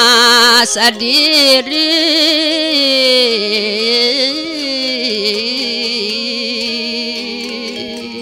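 A woman's solo voice singing a verse of a Balinese geguritan, stretching each word into long, ornamented notes with a wavering vibrato. The last held note slowly fades away.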